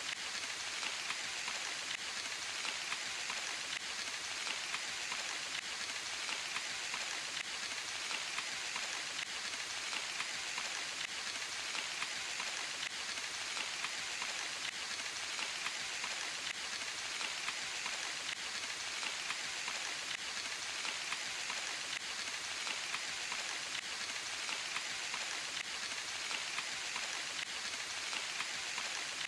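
Steady rain falling: an even hiss with a dense patter of small drops, unchanging throughout.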